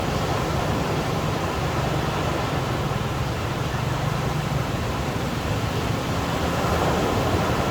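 Ocean surf on a beach: a steady rush of waves with no single break standing out.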